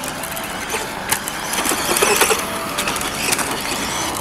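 Vintage Tamiya Frog electric RC buggy driving over a rough outdoor track: a faint motor and gear whine with scattered clicks and rattles from the chassis and tyres, loudest about halfway through.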